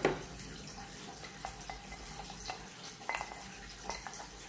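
Small clicks and clinks of metal hand-grinder parts and a brush being handled and set against each other, with a short ringing metallic clink about three seconds in. A knock at the very start is the loudest sound.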